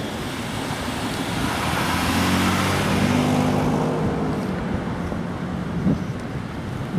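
A car driving past on the road, its engine and tyre noise swelling to a peak about three seconds in and then fading. There is a short knock about six seconds in.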